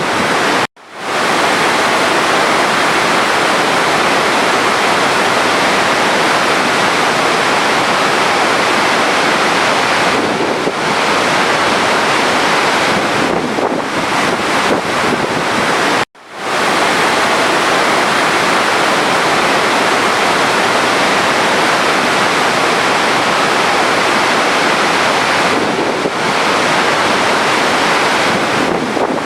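Steady rushing sound of running water. It cuts out abruptly twice, under a second in and again about 16 seconds in, and swells back to full level over about a second each time.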